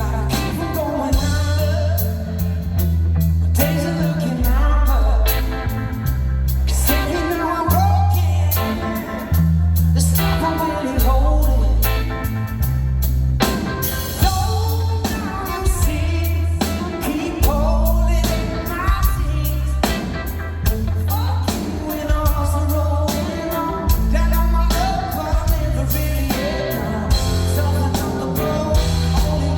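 Live blues-rock band performing a song: a man singing over electric guitar and drums, with a heavy, steady low end.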